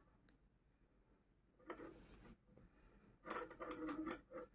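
Faint rubbing and rustling of yarn being drawn through the holes of a metal purse frame and through the crocheted fabric, in two short spells about two seconds and three and a half seconds in.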